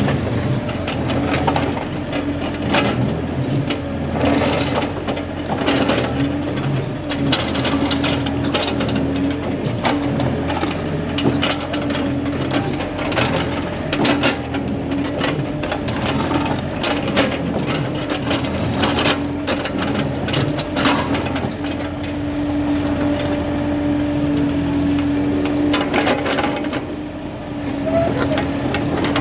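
Excavator's diesel engine running steadily with a constant hum, while its bucket scrapes and knocks irregularly against soil and stones.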